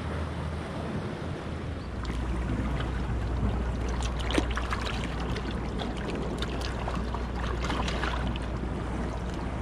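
Water splashing and sloshing as a plastic bag is swished and filled in a shallow rock pool, in quick irregular splashes through the middle of the clip. Under it, a steady low rumble of wind on the microphone that sets in about two seconds in.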